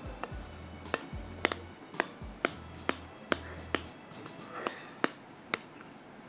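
Spatula knocking against the side of a glass mixing bowl in sharp clicks, about two a second, as whipped cream and fruit are folded together. Soft background music with a low bass runs under it and drops out about four seconds in.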